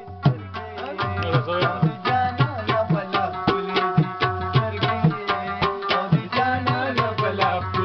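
Afghan rubab, a plucked lute, playing a melody over a steady tabla rhythm.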